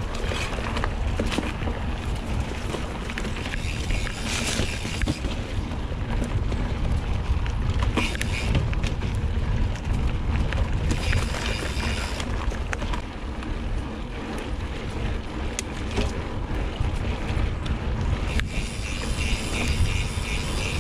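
Wind buffeting the microphone over the steady rumble and rattle of a mountain bike riding a dirt singletrack, with frequent small knocks and clicks as it goes over bumps.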